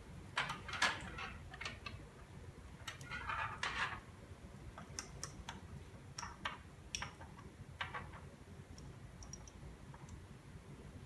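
Light clicks, taps and a few short scrapes of small objects being handled on a lab bench, several bunched together about a second in and again near the middle, then sparser.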